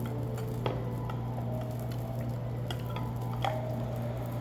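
A few light clinks and taps of cutlery and dishes at a meal table, about three spread through, over a steady low hum.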